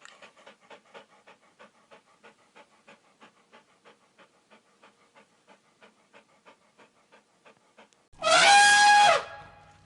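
An animal panting in quick, even breaths, about four a second. About eight seconds in, a loud call is held on one pitch for about a second and then drops at the end.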